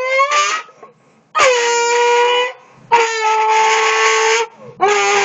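A voice imitating car noises: a long tone rising in pitch, then three drawn-out horn-like notes with short breaks between them, each starting with a quick slide in pitch.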